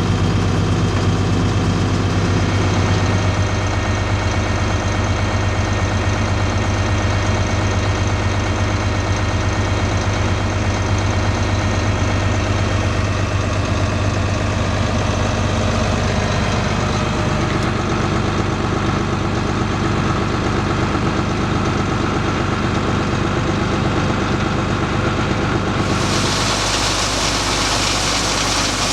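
Heavy diesel engine of harvest machinery running steadily, with a strong low hum. A steady high hiss joins suddenly near the end.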